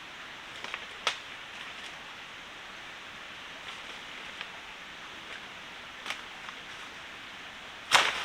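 Steady rushing hiss of a forest stream, with a few light knocks scattered through it and one loud, sharp knock at the very end.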